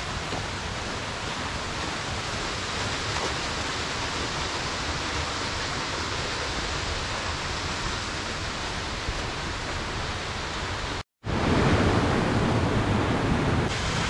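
Steady rushing of the Menzenschwander waterfall's water, an even noise with no pitch. It breaks off for a moment about eleven seconds in and comes back louder and deeper.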